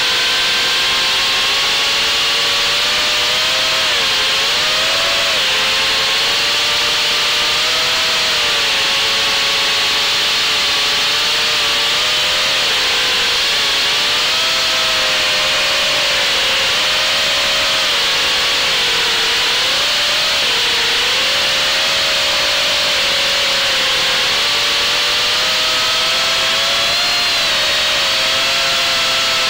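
FPV quadcopter's brushless motors and propellers in flight, heard through its onboard camera: a loud, steady whine in several close pitches that wobble up and down as the throttle changes.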